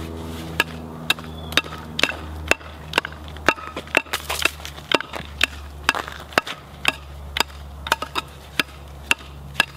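Homemade wooden pickaxe striking and chipping crusted ice on asphalt: steady sharp knocks about two a second.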